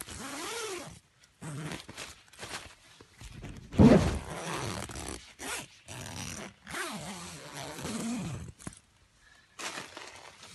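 Tent door zip being pulled open in a series of strokes, with the tent's nylon fabric rustling. A loud bump comes about four seconds in.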